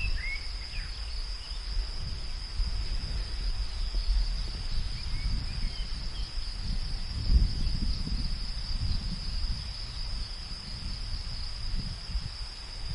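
Steady high-pitched insect chorus of crickets over a low, gusting wind rumble, with a few short bird chirps near the start and again about five seconds in.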